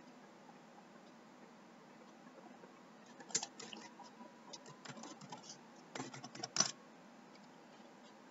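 Faint clicking of a computer keyboard and mouse: a scattered run of short clicks starting about three seconds in, with a quick burst near the end, over a low steady hiss.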